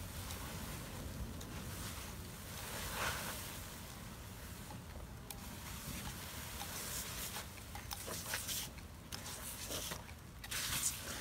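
Wind rumbling on the microphone, with short hissing bursts as a backpack sprayer's wand sprays water mixed with extinguishing agent onto burning wooden pallets.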